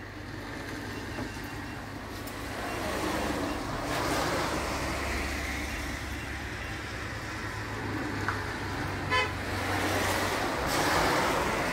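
A motor vehicle running, its engine and road noise swelling twice, with one short horn toot about nine seconds in.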